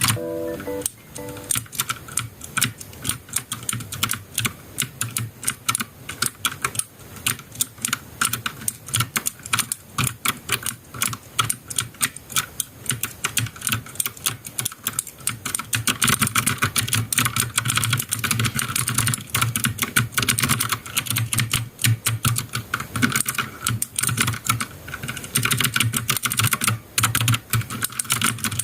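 Typing on a COX CK420 mechanical keyboard with clicky blue switches: a fast, continuous run of sharp key clicks that gets busier and louder about halfway through.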